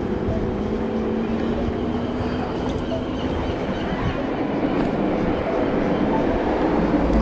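Steady wind rush and road noise from an e-bike riding along pavement at speed, a continuous rumbling hiss over the camera's microphone.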